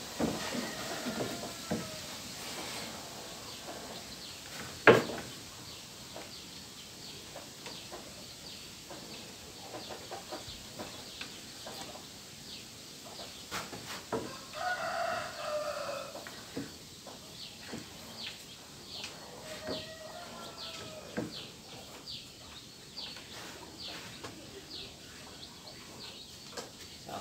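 A rooster crowing once about halfway through, with shorter chicken calls near the start and later on. Small taps and clicks throughout, and one sharp knock about five seconds in.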